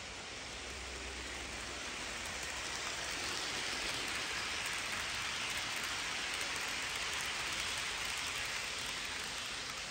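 HO scale model train, a Union Pacific SD70ACe pulling flatcars of model tanks, rolling past on the track with a steady hiss of wheels on rails. The hiss swells as the cars pass close by and eases off near the end.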